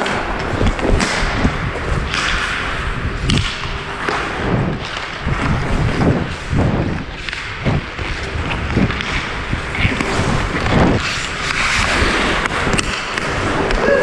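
Ice skate blades striding and scraping across rink ice, about one stride every half to one second, heard close up from a camera worn by the skater, with steady wind rumble on the microphone.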